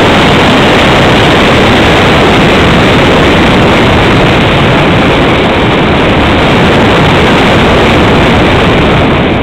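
Loud, steady wind rush buffeting the microphone of a small camera riding on a radio-controlled foam glider in flight, with no motor tone in it.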